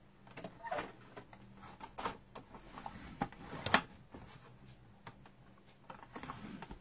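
Cardstock being handled and scored on a paper trimmer's scoring board: a handful of short scrapes and clicks of card and tool, the sharpest a little under four seconds in.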